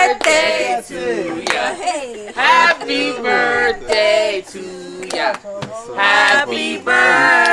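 A group of excited voices overlapping, shouting and cheering in greeting, with long high-pitched cheers near the end.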